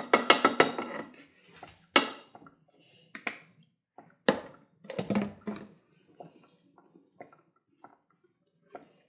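Handling sounds from a plastic squeeze bottle of barbecue sauce over a saucepan: a quick run of sharp clicks in the first second, then single sharp knocks and taps about once a second.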